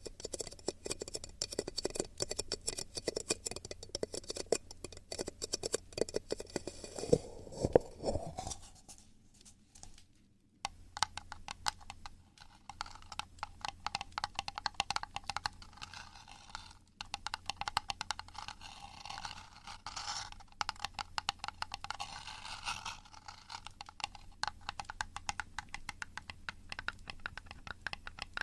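Close-microphone ASMR trigger sounds: rapid, dense scratching and crackling right at the microphone. They stop for about a second and a half around nine seconds in, then resume.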